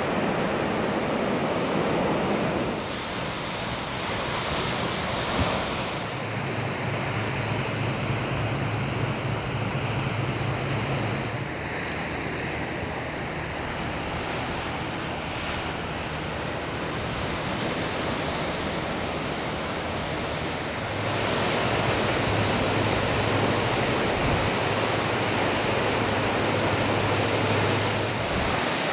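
Ocean surf washing steadily, with wind noise on the microphone. A steady low hum sits underneath in stretches, and the noise shifts abruptly a few times.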